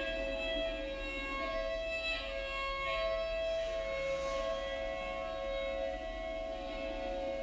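Outdoor civil-defense warning siren sounding a steady tone, several pitches held together and fading in and out as it sounds.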